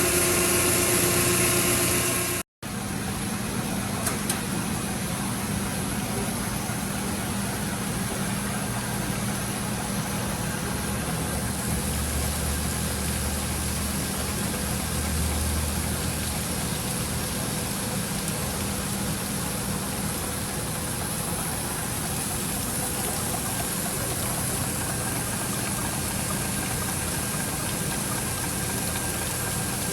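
Crankshaft grinding machine running steadily, its motor and grinding wheel giving a constant hum with a few held tones. The sound cuts out for an instant about two and a half seconds in.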